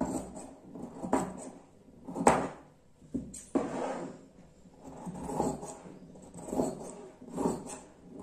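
Tailor's shears cutting through fabric on a table: a steady run of snips, about one a second.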